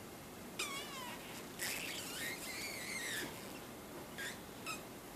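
A pet monkey giving high, squeaky, wavering calls: a short falling call, then a long warbling one, then two brief chirps near the end.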